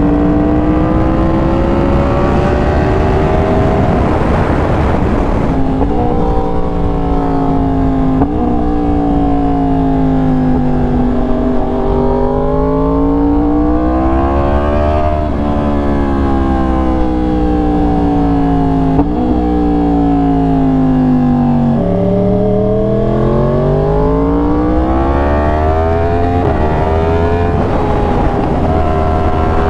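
Yamaha R1's crossplane inline-four on an SC Project exhaust, ridden hard: the engine note climbs under throttle, drops sharply at quick upshifts about 6, 8, 15 and 19 seconds in, and falls away as the rider eases off between runs before building again.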